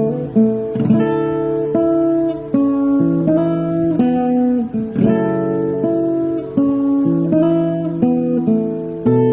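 Background music: instrumental acoustic guitar strumming chords.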